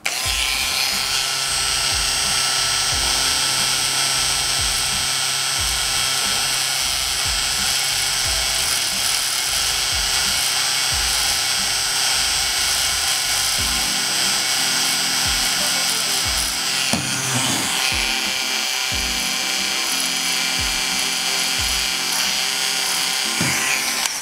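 Small power tool running steadily with a high hiss and whine.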